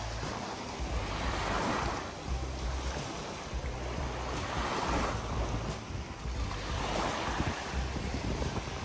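Sea surf washing in, three slow swells rising and falling over a steady rush, with wind rumbling on the microphone.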